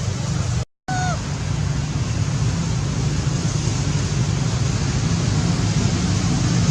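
Steady rushing background noise with a low hum underneath, cut off by a brief dropout just under a second in, after which a faint short falling squeak is heard.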